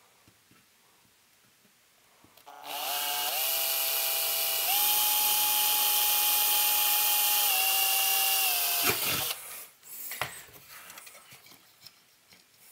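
Electric drill driving a 3/32-inch bit into the chassis to make a small hole for a switch's locating tab: the motor whine starts about two and a half seconds in, steps up in speed twice, eases down near the end and stops, followed by a few light handling clicks.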